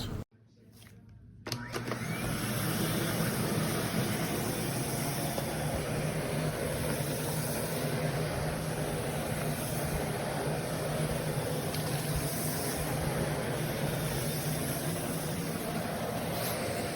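Aspiron 1600 W bagless canister vacuum cleaner running steadily: a motor hum under a rush of air, coming in about a second and a half in.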